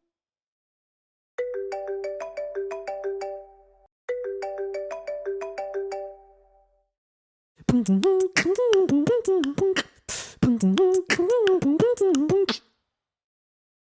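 A ringtone-style melody of short stepped notes, phrased like an iPhone ringtone, sounds twice. It is followed by a louder vocal beatbox imitation: a wavering sung pitch broken by sharp mouth clicks and pops.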